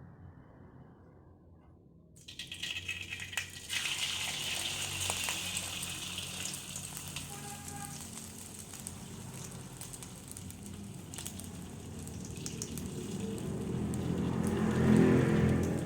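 Beaten eggs sizzling and crackling in hot oil in a frying pan. The sizzle starts suddenly about two seconds in as the eggs go into the pan, and swells louder near the end.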